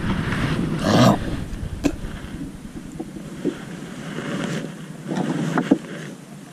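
Wind rushing over the microphone in an open skiff, loudest in a burst about a second in. A few sharp clicks and knocks come from a hand at a plastic tackle box on the boat's wooden seat.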